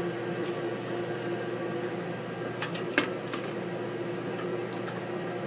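Steady hum of a kitchen appliance fan, with a few light clicks and one sharper knock about three seconds in.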